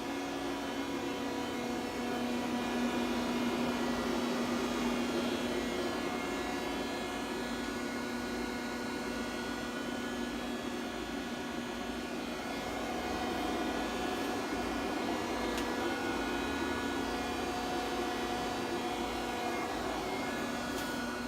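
1993 Mighty Comet CNC vertical machining center powered up and running, a steady machine hum and whir with several steady tones, growing a little louder a few seconds in and again later on.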